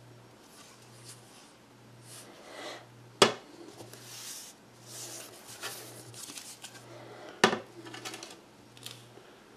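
A round glass sign with a cardboard backing being turned over and handled: cardboard and glass rubbing and scraping, with two sharp knocks against a hard surface, about three seconds in and again about seven seconds in.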